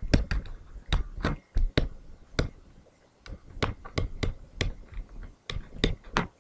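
Pen stylus tapping and clicking on a tablet screen while handwriting: a string of sharp, irregular clicks, about three a second, with a short lull in the middle.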